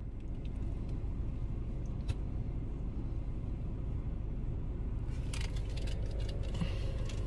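Steady low road noise of a car driving, with a click about two seconds in and a few brief light rattles in the second half.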